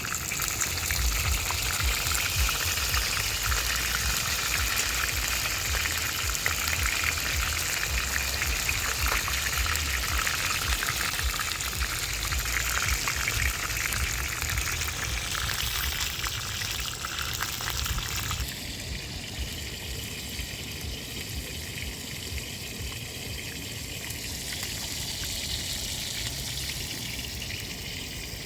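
Fish sizzling and crackling in hot oil in a frying pan, a steady hiss with fine spitting crackles that changes abruptly and turns thinner about two-thirds of the way through.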